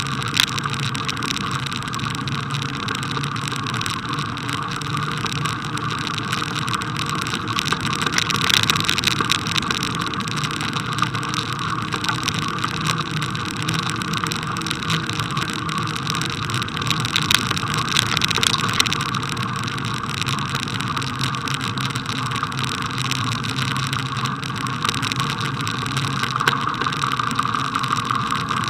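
Bicycle rolling along a snow-covered path: a steady rumble of tyres on packed snow with the rattle of the bike, and a few louder jolts about a third and two thirds of the way through.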